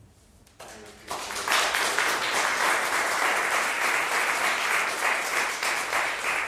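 Audience applauding, starting about a second in and quickly building to steady, full applause.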